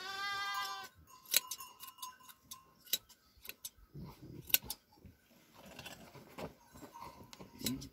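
Hand shears snipping through a sheep's fleece: irregular sharp metallic clicks of the blades closing. A sheep bleats once at the start.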